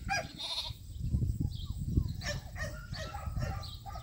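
Sheep bleating a few times, over a low rumble.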